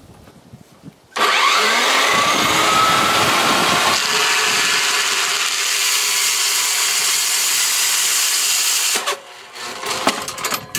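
Power cutting tool cutting through the metal of an AR-15 rifle: it starts about a second in, rising in pitch as it spins up, runs steadily with a loud hiss, and stops about a second before the end.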